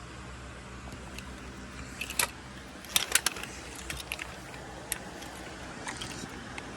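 Steady car cabin hum of engine and road noise while driving, with a few light clicks and rattles scattered through it.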